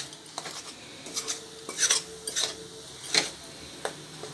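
Metal spoon stirring jaggery as it boils in water in a black wok (kadai): irregular scrapes and clinks against the pan, roughly one every half second to a second.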